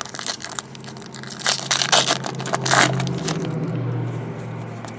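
Foil trading-card pack wrapper crinkling and cards being handled, an irregular crackly rustle that is loudest around the middle, over a steady low hum.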